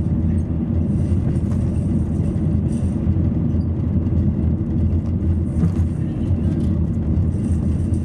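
Steady low rumble of a car driving, heard inside the cabin: tyre and engine noise on a rough, patched asphalt road, with a few faint ticks.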